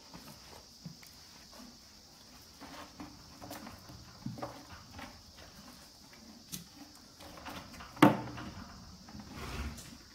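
A horse chewing and crunching a fresh corn stalk, with scattered crackles and rustles. About eight seconds in there is one loud, sharp knock, followed shortly by a dull thud.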